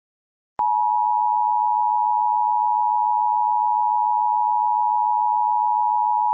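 Emergency Alert System two-tone attention signal, a steady tone that starts about half a second in and holds. It signals that an emergency message, here a tornado warning, is about to follow.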